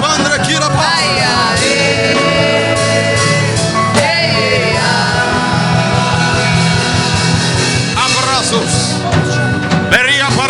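Worship music: sustained chords with a voice singing over them, rising and falling in pitch near the start and again near the end.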